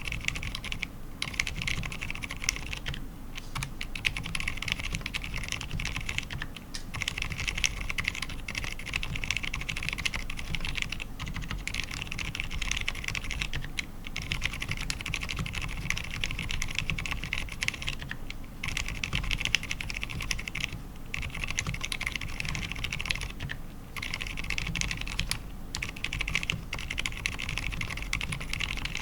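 Fast, continuous typing on an ABKO AR87 mechanical keyboard with fully lubed Cherry MX Silent Red switches, PBT keycaps and an aluminium plate, broken by short pauses every few seconds.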